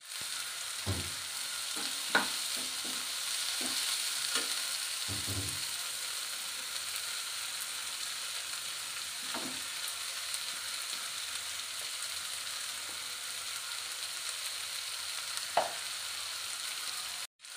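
Drumstick flowers and onions sizzling steadily in oil in a kadai. A few short knocks and clinks come from a steel mixer jar and spatula against the pan as ground coconut is scraped in.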